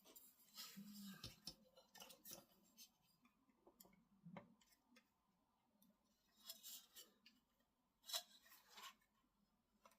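Faint, scattered clicks and brief scraping rustles of plastic model-kit parts being handled and pressed into place, loudest twice in the second half.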